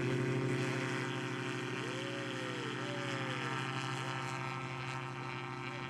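Autogyro's pusher engine and propeller at full throttle on a short take-off run, a steady droning note that holds its pitch and fades slightly toward the end.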